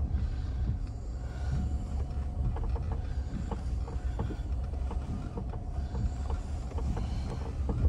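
Inside the cabin of a Range Rover Velar 3.0 V6 climbing a rough dirt track under steady power: a low, steady rumble from the vehicle, with frequent small knocks and rattles as it goes over the bumps.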